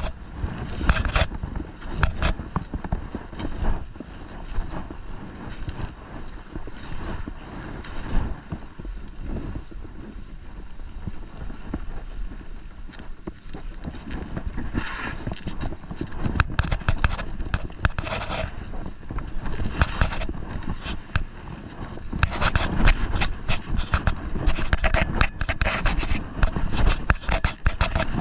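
Skis scraping over packed snow during a descent, with wind buffeting the microphone. The scraping comes in repeated surges, denser and louder in the last third.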